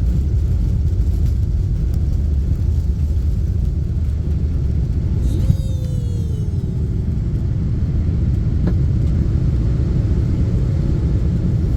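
Steady low rumble of jet airliner cabin noise during the departure climb. About five seconds in, a brief sound with a falling pitch passes over it.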